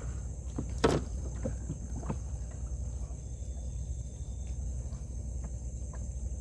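Steady high-pitched insect drone over a low rumble, with one sharp knock about a second in and a few fainter clicks after it.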